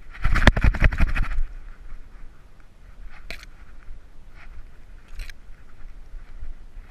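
A GoPro rattling and knocking in its mount on a dog's back as the dog moves through the brush. There is a dense burst of rapid clicking in the first second or so, then single clicks about three and five seconds in.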